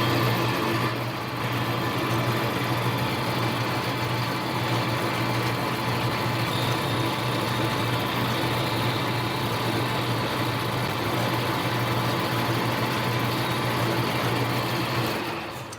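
Metal lathe running steadily under power for a turning pass taking 15 thousandths off the diameter, with a steady motor hum; it starts right at the outset and winds down and stops near the end.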